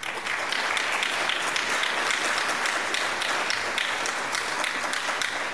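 Audience applauding: many hands clapping together, starting abruptly and holding steady.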